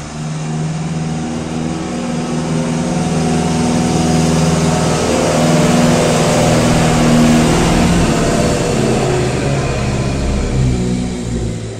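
A motor vehicle engine passing by: a steady hum that swells over several seconds and fades near the end.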